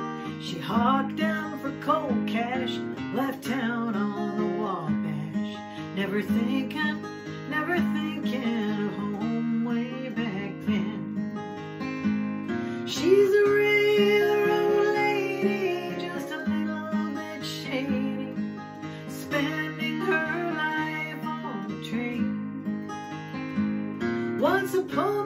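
Acoustic guitar played solo at a slow, lazy pace, picked bass notes with chords and melody notes over them.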